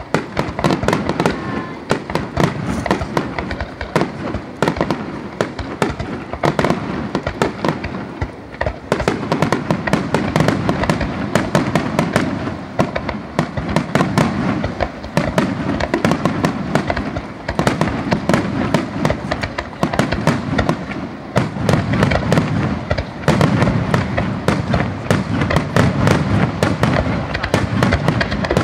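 Large fireworks barrage: aerial shells bursting in rapid succession, a continuous string of bangs and booms. The deeper booms come in heavier clusters through the second half.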